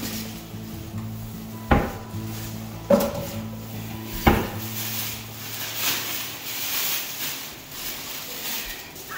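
Kitchen clatter: three sharp knocks of kitchenware a second or so apart, the second with a brief ring, over a steady low hum.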